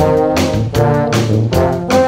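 Multitracked tuba and other low brass instruments playing a lively tune in harmony over a drum kit keeping a steady beat of about three strikes a second.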